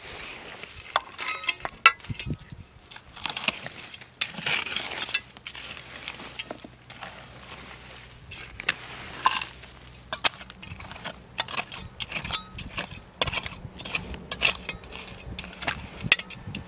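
Small hand pick striking and scraping dry, stony soil against rock: irregular sharp clinks and knocks of metal on stones, mixed with gritty scrapes of dirt.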